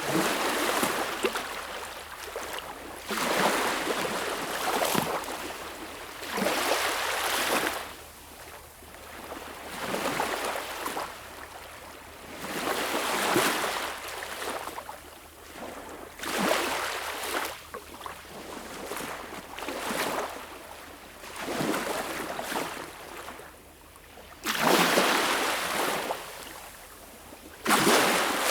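Small waves breaking and washing up a beach: a hissing wash that swells and falls about every two to three seconds, with a sharper, louder break near the end.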